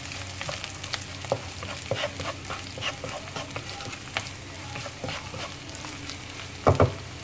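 Sliced onions, red chilies and curry leaves sizzling in a non-stick wok while a wooden spatula stirs and scrapes them, with scattered small clicks over a steady hiss. Two sharp knocks close together near the end are the loudest sounds.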